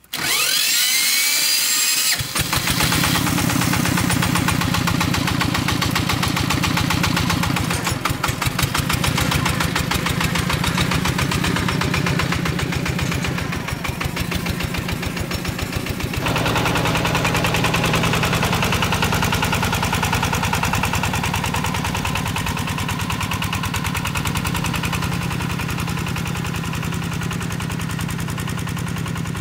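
Single-cylinder diesel engine of a homemade farm truck starting, with a rising whine over about the first two seconds. It then runs with a steady, rapid chug while the truck hauls a load of bamboo.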